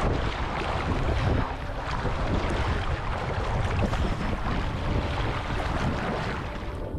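Ocean surf washing in among rocks, a steady rushing noise with a heavy low rumble, and wind on the microphone.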